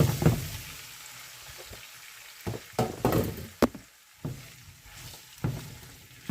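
Sliced plantain going into a pot of hot palm oil and fried onions, sizzling, with a series of sharp knocks and clatters against the pot as the pieces are added and stirred.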